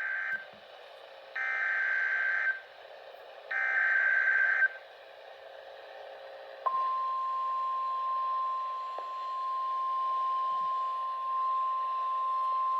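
Emergency Alert System SAME header: short digital data squawks about a second each, the first already under way, over radio hiss. Partway through, a single steady NOAA Weather Radio warning alarm tone starts and holds, signalling a weather warning about to be read.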